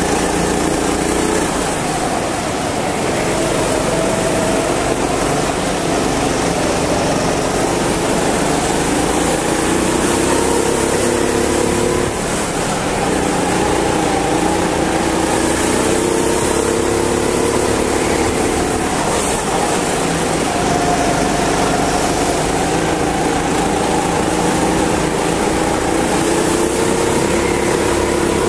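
Go-kart engine heard from on board, its revs climbing in long pulls and dropping back sharply several times as the kart goes from straights into corners.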